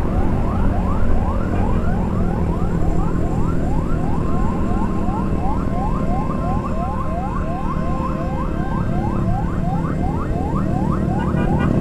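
Fire engine siren in fast yelp mode, a rising sweep repeating about two to three times a second, with a steady tone mixed in for a few seconds in the middle. It sounds over a continuous low rumble of engine and wind noise.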